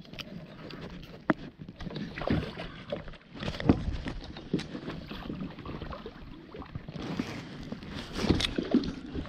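Irregular sloshing and splashing of water at the side of an inflatable boat, with scattered knocks and rustles of gear being handled.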